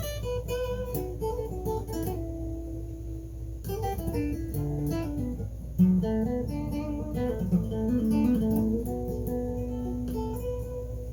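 Guitar playing an instrumental blues passage between sung lines: single plucked and held notes stepping up and down in pitch, with a sharp, louder attack about six seconds in.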